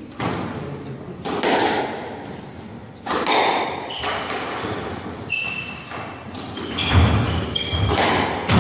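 Squash rally: the ball is struck by rackets and hits the walls about every one to two seconds, a sharp impact each time. From about four seconds in, shoes squeak repeatedly on the wooden court floor as the players lunge and turn.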